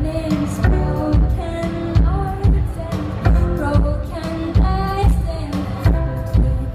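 Live pop song with a female lead singer over a heavy drum beat and loud bass, heard through a boomy audience recording with poor sound.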